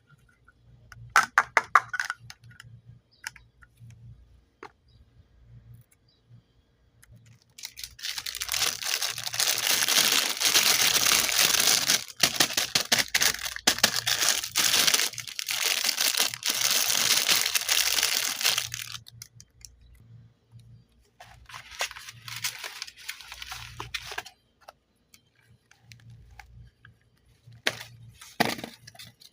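Modelling-clay packaging being torn open and crinkled by hand. A few sharp clicks come first, then a long loud stretch of tearing and crinkling, a softer bout of rustling, and a couple of sharp crackles near the end.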